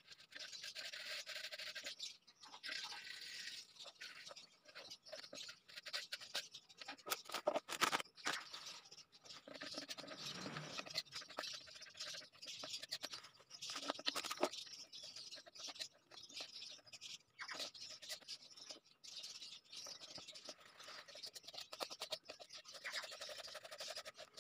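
Metal spoon scraping and clicking against the inside of an aluminium wok while stirring milk, jam and oats into a porridge, in quick irregular strokes.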